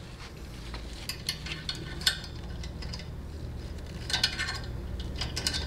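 A small screwdriver scraping and clicking against the steel E-clip on the 2-3 accumulator piston of a TH475 transmission valve body while it is pried loose: a scatter of light metallic clicks over a steady low hum.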